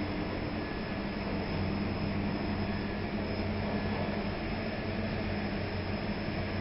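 A steady low machinery hum.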